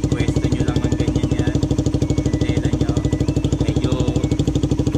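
Motorcycle engine running steadily at idle with an even rapid pulse, turning the rear wheel while a cloth is held against the hub to polish it.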